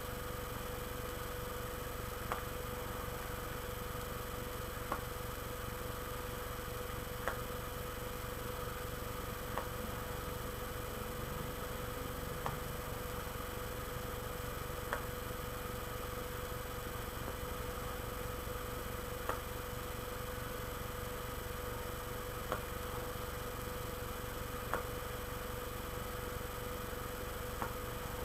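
Steady electrical hum with a faint constant tone, and a small sharp click about every two to three seconds.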